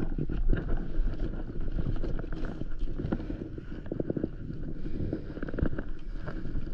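Wind buffeting the microphone in a steady low rumble, with water washing against an inflatable paddleboard and scattered light knocks and clicks.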